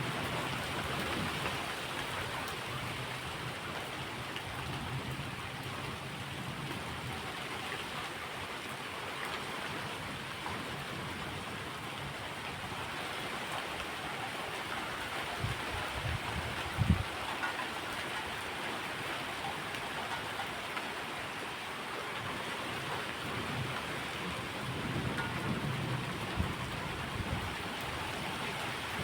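Steady rain falling, with a few short low thumps about 17 seconds in and again near 26 seconds.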